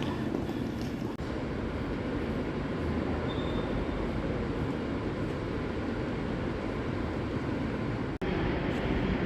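Passenger train running on the rails: a steady, low rumble of wheels and running gear, which breaks off for an instant about eight seconds in.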